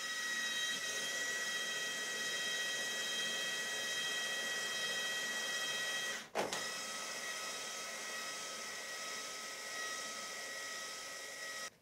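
Cordless xDrill power drill running a tapping cycle, its motor giving a steady whine as it drives a tap into the workpiece. About six seconds in it stops with a short knock as it reaches the set thread depth, then runs in reverse to back the tap out, and cuts off just before the end.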